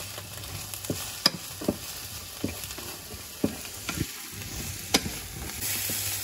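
Onion and carrot sizzling in vegetable oil in a frying pan, stirred with a wooden spatula that knocks lightly against the pan several times. The sizzle grows louder near the end.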